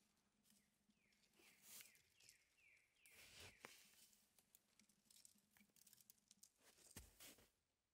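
Faint rustling and a couple of sharp snaps as young yellow birch twigs are broken off and gathered by hand in snow.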